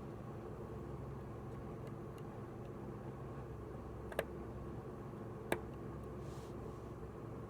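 Two sharp clicks, about four and five and a half seconds in, with a few fainter ticks before them, over a steady hum.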